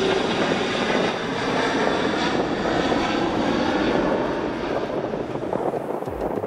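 Jet engines of a twin-engine airliner at takeoff thrust as it lifts off, a loud steady rushing roar that eases off near the end.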